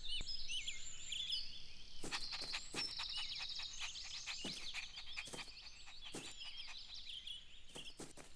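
Ambient birdsong: several birds chirping and trilling with many short, high, overlapping calls, kept quiet in the background.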